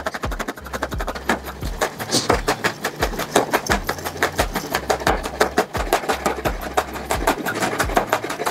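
Chef's knife finely chopping shallots on a bamboo cutting board: a rapid, even run of sharp knocks as the blade strikes the wood.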